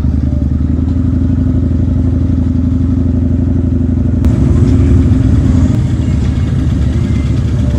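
Motorcycle engine running at road speed with wind rushing over the microphone. It gets louder for a second or so about four seconds in.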